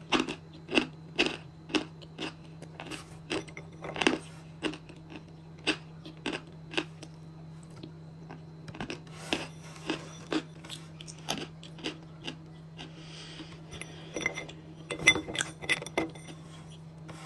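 Close-up chewing of a piece of Peschanka edible clay: crisp crunches and mouth clicks about twice a second, thinning out in the middle and bunching up again, loudest, near the end.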